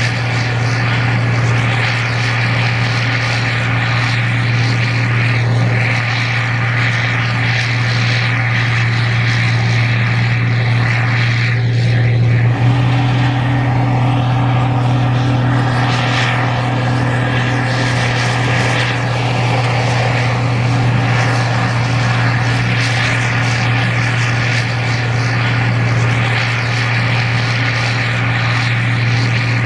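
Gleaner R52 combine running steadily while harvesting corn: a loud, constant engine-and-machinery drone with a deep hum, its tone shifting slightly about twelve seconds in.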